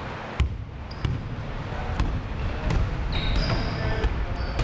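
Basketball being dribbled on a hardwood gym floor: a thud every second or so. In the second half, sneakers squeak on the court.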